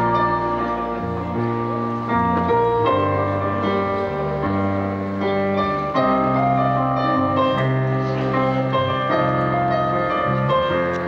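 Drum corps field-show music: the front ensemble's keyboards play slow, sustained chords over a bass line, and the chord changes every second or so.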